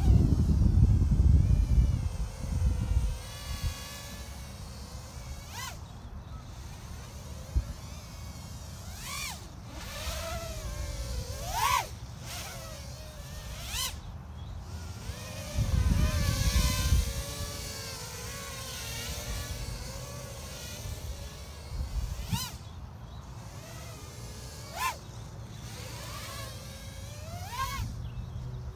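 Small 3-inch FPV quadcopter on 1105 6000KV brushless motors and a 3S battery flying acro: a high, buzzing whine of motors and props that glides up and down with the throttle, with several quick sharp rises as it punches out and swoops past. Low rumble at the start and again about halfway through.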